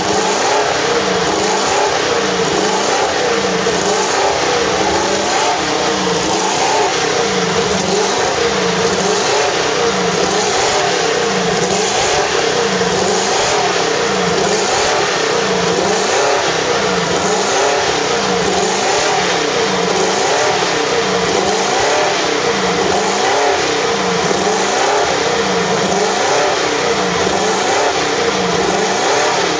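Mercedes-Benz W196's 2.5-litre straight-eight racing engine running hard while it warms up, held at around 4,000 rpm. Its note swells and dips gently about every second and a quarter.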